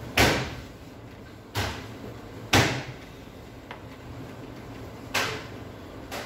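Five sharp knocks and clunks of tools and parts being handled and set down on a workbench, spread unevenly, the first and third loudest.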